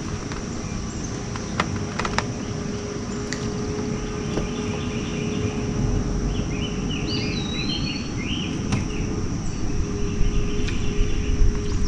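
Songbirds chirping and calling from the waterside trees through the middle stretch, including one swooping whistle, over a steady low rumble and a faint steady hum, with a few light clicks and knocks.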